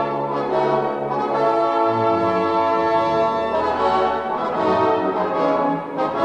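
Orchestral music from an opera overture: full, sustained chords with the brass to the fore, the bass line shifting about two seconds in.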